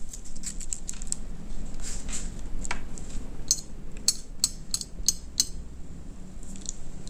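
Sharp, crisp clicks and crackles of tableware and crisp fried wontons being handled on a plate, with a quick run of them in the middle.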